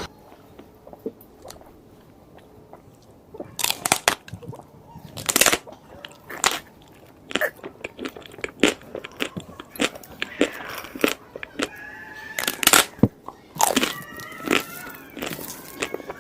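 Close-miked eating: crunchy bites and chewing. It begins about three seconds in, then runs as irregular, sharp crunches.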